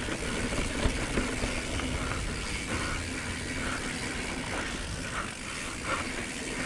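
Mountain bike rolling fast down a dirt singletrack. A steady rush of tyre noise on loose dirt and air noise, with a few faint knocks and rattles from the bike.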